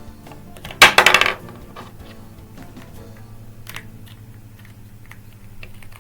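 A short clatter of hard plastic pieces knocking together, a rapid run of clicks lasting about half a second, followed by a few faint single clicks.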